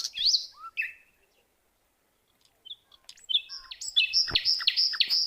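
Small birds chirping: a few short high chirps, a pause, then a quick run of repeated sharp chirps, about five a second, starting about four seconds in.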